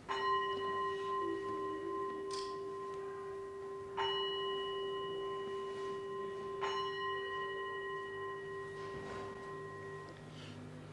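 A bell struck three times, the second strike about four seconds after the first and the third under three seconds later. Each strike rings on with a clear low tone and higher overtones that fade slowly.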